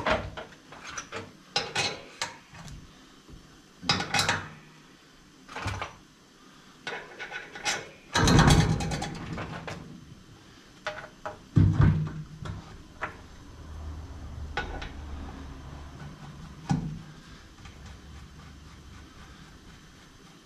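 Metal clanks, knocks and scraping of a motorcycle wheel, cones and adapter being fitted onto a wheel balancer's shaft, a string of separate knocks with louder clatters about eight seconds in and again near twelve. A faint low hum follows and fades.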